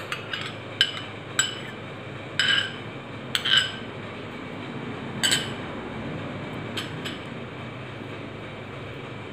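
Steel spoon clinking and scraping against glass bowls while whisked yogurt is scraped out over raw chicken: about eight scattered sharp clinks, two of them ringing briefly.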